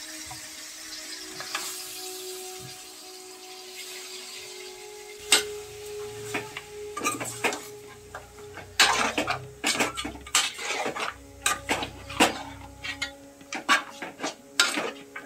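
Raw chicken pieces sizzling in hot oil and masala in an aluminium pot. From about five seconds in, a steel spoon stirs the pot, scraping and clinking against its sides in quick, irregular knocks.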